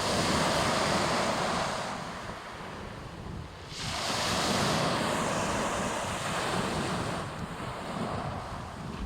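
Sea waves washing onto the shore, one surge rising sharply about four seconds in and slowly fading, with wind buffeting the microphone.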